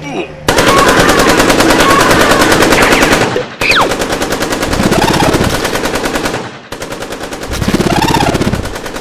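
Rapid automatic rifle fire, a cartoon gunfire sound effect, starting about half a second in and running in three long volleys with short breaks between them. A lower tone rises and falls twice under the shots.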